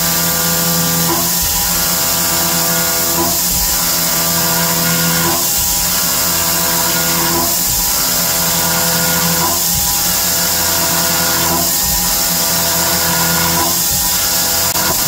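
A milling machine's 1/2-inch carbide end mill slotting 1018 cold rolled steel at about 5,600 rpm: a steady spindle whine with a cutting noise that swells and dips about every two seconds as the table reverses at each end of the back-and-forth ramping pass.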